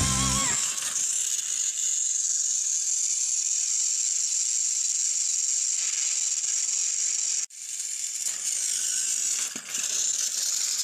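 Electric motors and plastic gearboxes of two battery-powered toy trains whirring steadily while the trains push against each other on plastic track, with a faint rattle. The sound cuts out suddenly for a moment about seven and a half seconds in.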